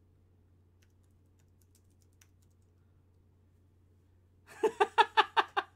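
A few seconds of near silence with a faint steady hum, then near the end a quick burst of laughter: about ten short, rapid pulses.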